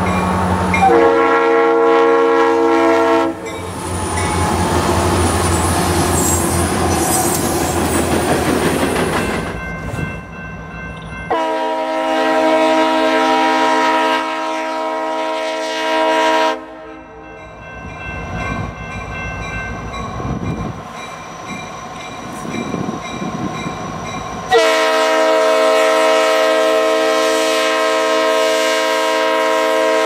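Leslie RS3L three-chime air horns on EMD SD60I freight locomotives sounding three blasts: a short one about a second in, a longer one near the middle and another near the end. Between the blasts is the rumble of the passing freight train with its wheels clicking over the rail joints.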